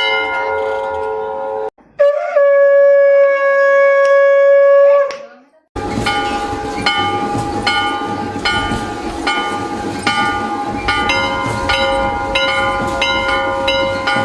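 A temple bell rings out, then a conch shell is blown in one long steady note for about three seconds. After a brief break a temple bell is rung rapidly and repeatedly, and from about halfway on the conch sounds again over the bell strokes.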